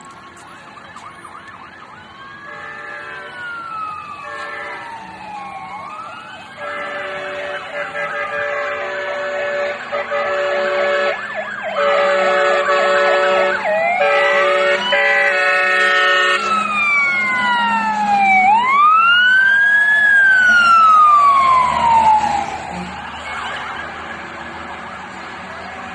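Several fire engines on an emergency run: electronic sirens wail and overlap, with a series of loud air-horn blasts in the middle. The sirens grow louder as the engines approach, peak in the second half, then drop away near the end.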